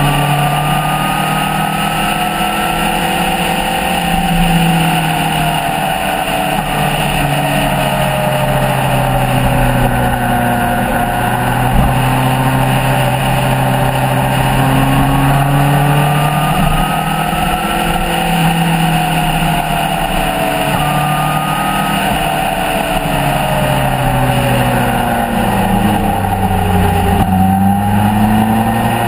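Motorcycle engine running at road speed under the rush of wind, its note rising and falling gently. Near the end the pitch sinks as the bike slows, then climbs again as it picks up speed.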